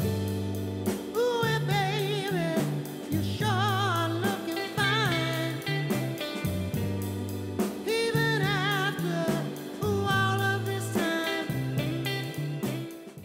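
A song with a sung vocal, showing vibrato, over a stepping bass line and a steady drum beat. It cuts off abruptly near the end.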